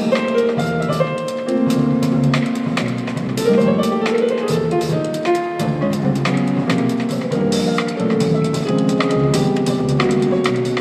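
Jazz trio playing live: piano sound from a Yamaha stage keyboard, an upright double bass, and a drum kit with frequent cymbal and drum strokes.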